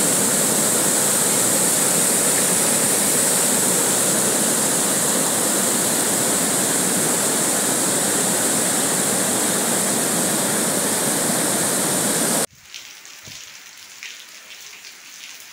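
Muddy floodwater pouring over a small weir spillway, a steady loud rush. About twelve seconds in it cuts off suddenly to much quieter rain with faint scattered drop ticks.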